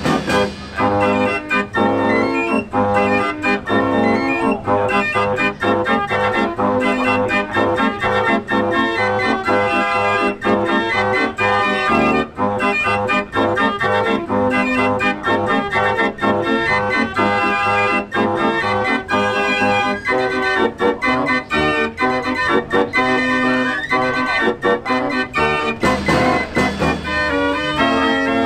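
49-key Marenghi fair organ playing a tune, many pipe notes at once over a bass that repeats in a steady rhythm.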